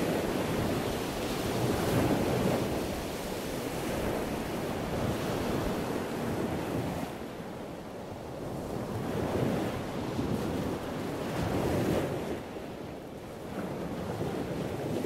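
Wind rushing and buffeting over the microphone of a moving camera, a rough steady noise that swells and eases in gusts, dropping away briefly twice.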